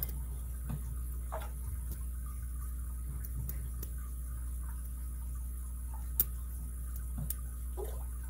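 Lock pick and tension wrench working in a Master Lock M15 padlock: faint scattered metallic clicks and scrapes of the pick on the pins, with one sharp click about six seconds in.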